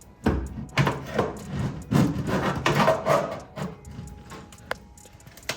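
Irregular rubbing and scraping as a car's wiring harness is worked loose and dragged out, in uneven strokes that die down after about four seconds, with a sharp click near the end.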